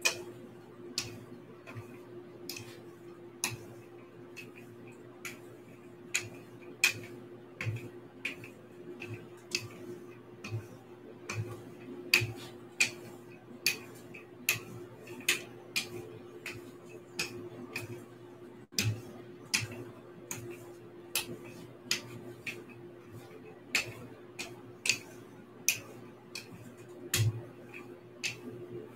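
Rolling pin clicking and knocking on the tabletop as pie dough is rolled out, sharp clicks at an uneven pace of about one or two a second. A steady low hum runs underneath.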